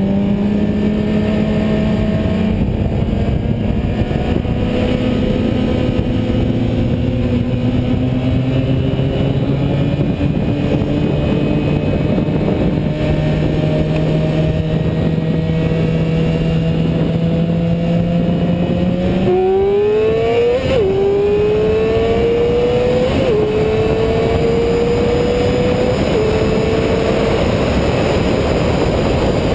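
A vehicle's engine under way at highway speed, its note creeping slowly upward. About two-thirds in it revs hard and climbs through three quick upshifts, the pitch dropping at each change. Near the end the engine note fades under rushing wind noise.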